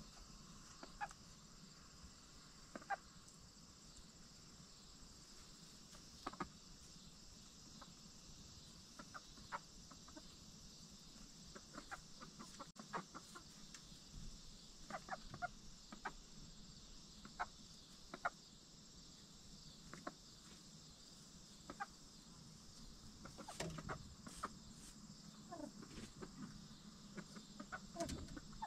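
Backyard hens clucking softly, short quiet clucks scattered here and there, coming a little more often near the end, over a steady faint hiss.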